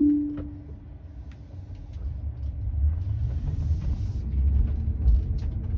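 Low tyre and road rumble inside a Tesla Model 3's cabin as the electric car moves off, growing louder after about two and a half seconds. A short falling two-note chime from the car sounds at the very start, and a brief hiss comes about three seconds in.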